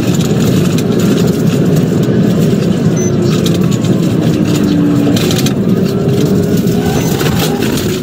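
Steady road and engine noise inside a moving police patrol car, with a faint siren wail gliding up and down behind it.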